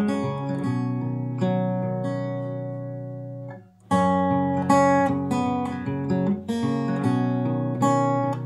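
Background music with strummed acoustic guitar. It fades down and stops briefly about three and a half seconds in, then starts again just before four seconds.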